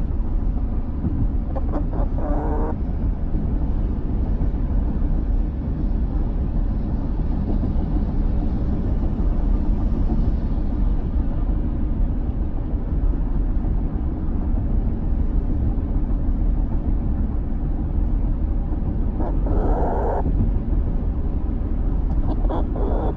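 Steady low road and engine rumble inside the cabin of a moving van. Two short higher-pitched sounds break in, about two seconds in and again near twenty seconds.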